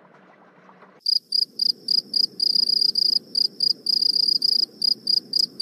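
Crickets chirping, the usual night-ambience effect: short high chirps in an uneven rhythm that start about a second in, over a low steady hiss.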